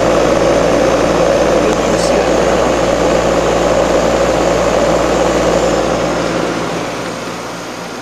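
Homemade heat pump water heater running: a steady machine hum and whoosh of air from its air-conditioner compressor and radiator fan, easing off slightly near the end.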